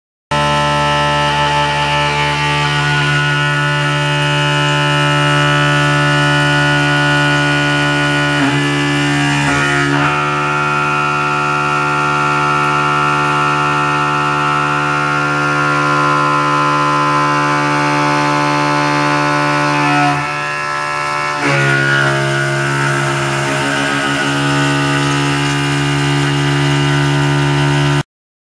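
Mikini CNC mill cutting 6061-T6 aluminium with a long end mill, spindle at about 4350 RPM: a loud, steady, many-toned cutting whine. Its tones shift about 8 to 10 seconds in, and it drops briefly about 20 seconds in before the cut resumes.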